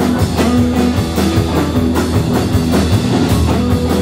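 Live rock-and-roll band playing an instrumental passage: strummed acoustic guitar and electric guitars over a drum kit keeping a steady beat, with a sustained low bass line underneath.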